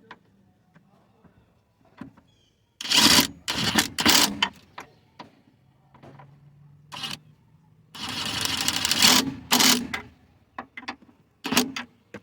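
10mm socket ratchet clicking in several quick bursts, tightening the nuts on a car's air intake mounting bracket.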